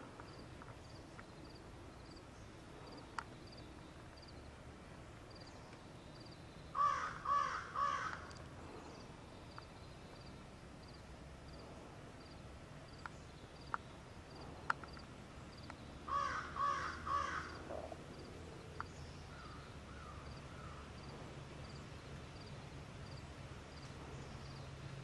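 A bird cawing in two series of about four calls each, about seven seconds in and again about sixteen seconds in.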